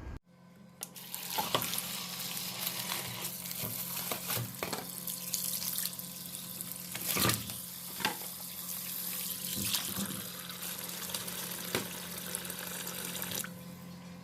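Water running from a tap into a sink, with a few sharp clinks of things being handled under it. The water stops near the end.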